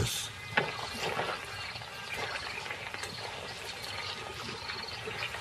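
Wet mud and shallow water squelching and trickling as a crocodile shifts in a muddy pool: a steady soft wash with a couple of small wet slaps about half a second and a second in.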